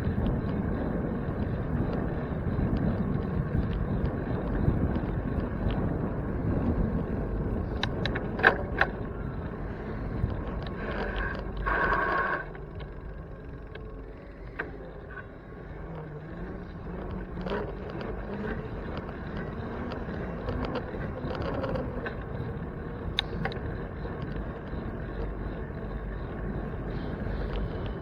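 Riding noise from a bicycle ride: wind buffeting the microphone and road rumble, with a few clicks and a short high squeal about eleven seconds in, after which it turns quieter.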